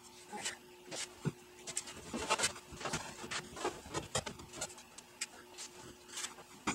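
Irregular knocks, taps and scrapes of wooden ramp boards and a sheet-metal furnace cabinet being handled and shifted by gloved hands, busiest two to three seconds in. A faint steady hum runs underneath.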